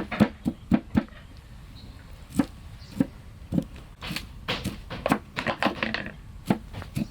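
A series of sharp knocks or chops, irregularly spaced, with a quicker run of them past the middle.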